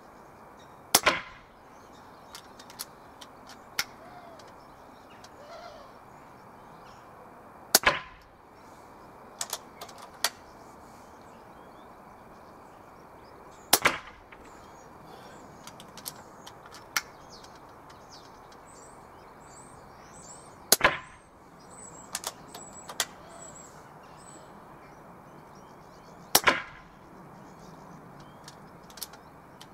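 Zbroia Hortitsia .177 pre-charged pneumatic air rifles firing: five sharp shots spaced about six seconds apart, with lighter clicks between them. Faint bird chirps around the middle.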